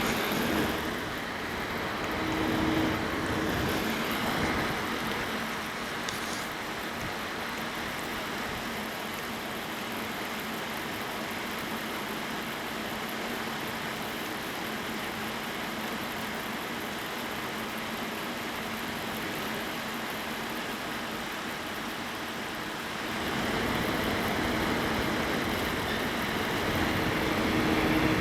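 Running computer with a steady whir and hiss, and a steady whistle from the Asus P5K motherboard's chokes (coil whine), which whistle as the CPU load rises. The sound grows louder near the end, with a steady tone coming back in.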